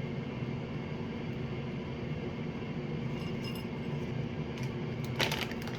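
A steady low electrical hum, with a brief light rattle of raisins being shaken into a dish about five seconds in.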